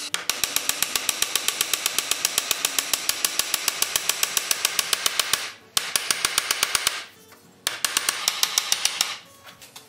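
Small hammer tapping rapidly on metal at a sleigh runner's repair joint, about eight light blows a second, in three runs with two short pauses.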